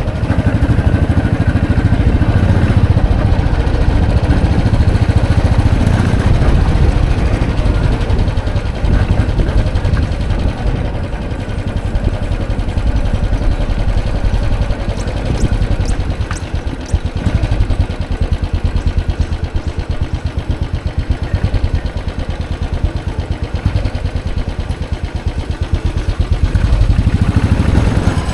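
Royal Enfield Classic 500's single-cylinder engine running with a steady low thump, quieter through the middle and picking up again near the end.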